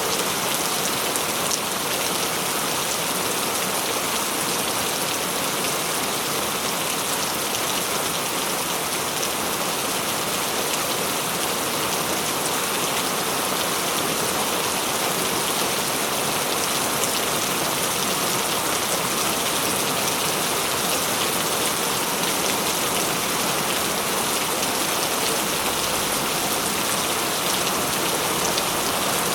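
Steady rain falling and splashing on surfaces, an even, unbroken hiss throughout.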